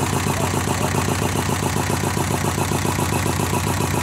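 Vintage stationary engine running steadily with a rapid, even beat.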